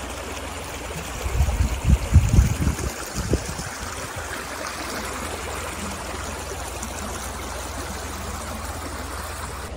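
Water running steadily in a stream. A few louder low thumps on the microphone come between about one and three and a half seconds in.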